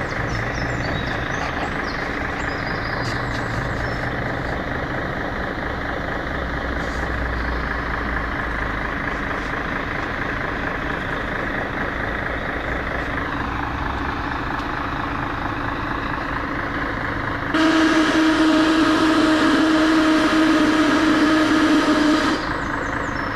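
Scania L113CRL bus with its engine running, then about two-thirds of the way in a really loud blast of hissing with a steady tone through it, lasting about five seconds and cutting off suddenly. It sounds like a compressed-air release.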